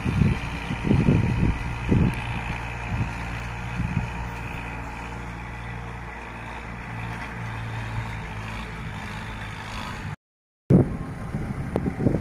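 Old International tractor's diesel engine running steadily under load while pulling a rotary tiller, heard from a distance, with irregular low buffets of wind on the microphone. About ten seconds in the sound drops out for half a second, then returns louder and closer.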